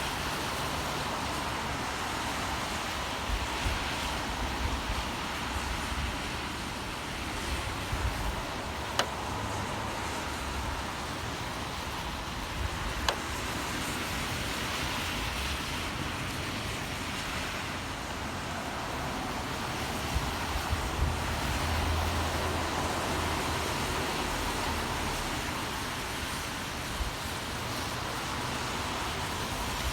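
Steady rain with the low hum of city traffic beneath it, and a couple of sharp ticks.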